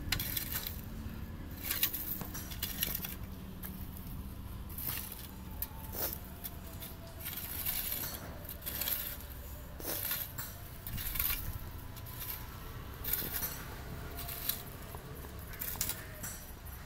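Hand weeder's metal tines scraping and clinking through dry, stony soil in repeated pulled strokes, roughly one a second, with the tool turned to its weed-cutting side.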